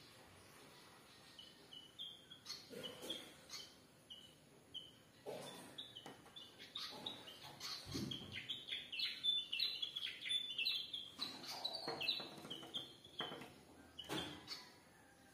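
Birds chirping at a window in short high chirps, scattered at first and then coming quickly one after another for several seconds in the middle. A few soft thumps or flutters come in between.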